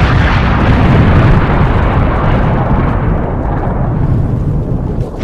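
Explosion-style sound effect from an outro animation: a loud, dense rumbling noise whose hiss thins and fades over the last couple of seconds.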